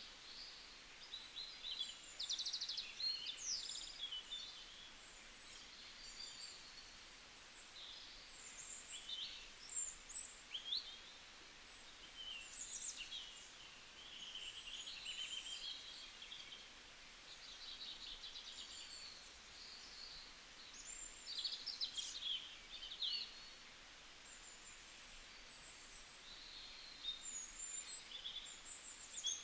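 Several songbirds chirping and singing in short, overlapping calls and quick trills, busier in a few stretches, over a faint steady forest hiss.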